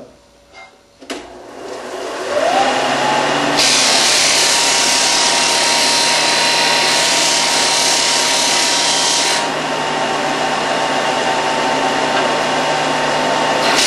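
Craftsman disc sander switched on about a second in, its motor spinning up with a rising whine and settling into a steady hum. A wooden block is then pressed against the spinning sanding disc, giving a loud, steady grinding of wood being sanded away, a little lighter after about nine and a half seconds.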